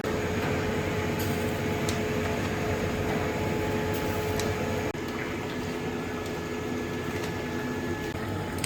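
Shellfish sizzling and bubbling as it cooks on a grill, a steady hiss over a low machine hum, with a brief break about five seconds in.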